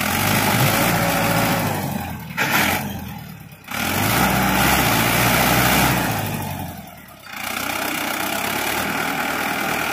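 Mahindra Arjun tractor's diesel engine running hard, its sound dropping away sharply twice and coming back each time.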